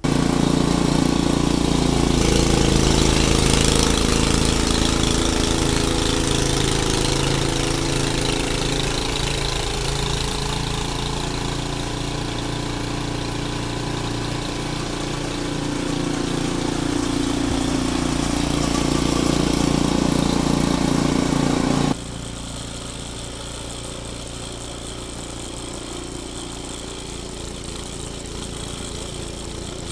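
Ariens Deluxe 28 two-stage snowblower's single-cylinder engine running steadily. About 22 seconds in the level drops abruptly, and it runs on quieter.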